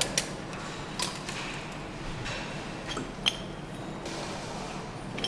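A few sharp clicks and clacks of cable connectors and clips being pressed into place by hand on an engine, the loudest about three seconds in, over the steady hum of factory machinery.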